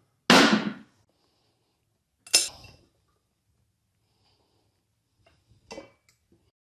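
A riding-mower tire, tossed onto a concrete floor, lands with a loud thump that fades over about half a second. About two seconds later comes a sharp metal clank, and near the end a lighter knock, as the tire changer's cone and the steel rim are lifted off the spindle.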